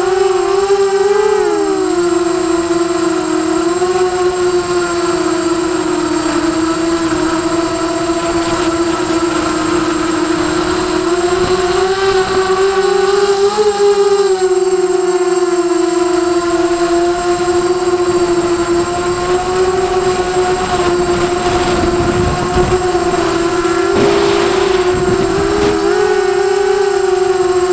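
Emax Night Hawk 280 Pro FPV quadcopter's brushless motors and propellers whining as a steady hum, its pitch wavering up and down with the throttle. Brief rushes of noise come about three-quarters of the way through.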